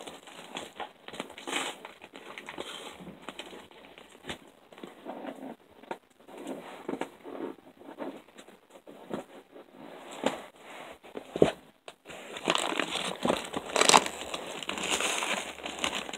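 Package wrapping crinkling and rustling as it is handled and pulled open, with scattered sharp crackles and small knocks against the cardboard box. It gets busier and louder in the last few seconds.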